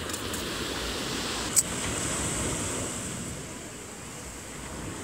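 Ocean surf washing onto the beach, a steady rush of noise, with one sharp click about a second and a half in.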